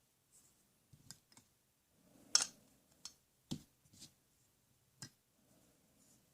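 Toy tools being handled: a handful of sharp, irregular clicks and knocks, the loudest about two and a half seconds in, with faint rustling between.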